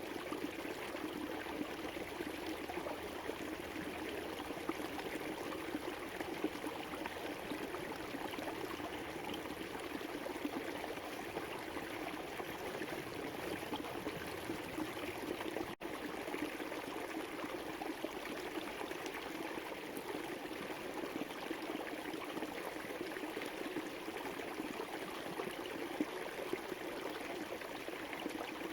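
River water flowing over a streambed, a steady rushing and gurgling with no change. The sound drops out for a split second about halfway through.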